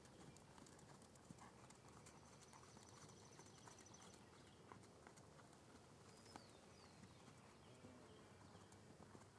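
Faint hoofbeats of a New Forest pony trotting on sand, soft, irregular knocks.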